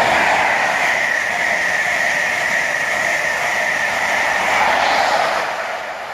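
High Speed Train (InterCity 125) with Class 43 power cars running through the station at speed: a loud, steady rush of wheels on rail with a steady high whine as the coaches pass. The noise swells briefly about five seconds in as the rear power car goes by, then falls away as the train recedes.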